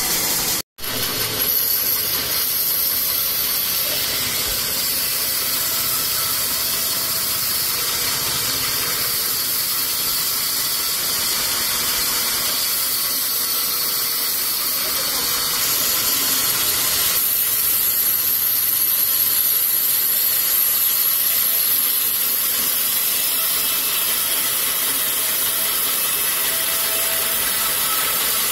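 Sawmill band saw running with a steady high hiss as it saws koroi timber. The sound drops out completely for a moment just under a second in.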